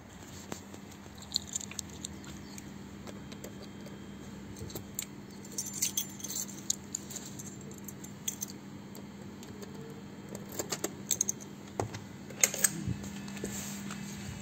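Small metallic clicks and rattles, then a prefab container door's metal lever handle and latch being worked near the end as the door is opened. A steady low hum runs underneath.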